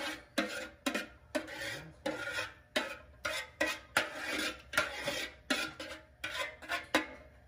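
Metal spoon scraping and stirring against the bottom of a large aluminium stockpot, in quick irregular strokes about two a second, working pork fat around the pan as it melts.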